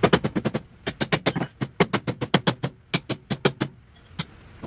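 Hammer blows on the old trailer's deck, coming in quick bursts of four to six sharp strikes with short pauses between, then a couple of single blows near the end.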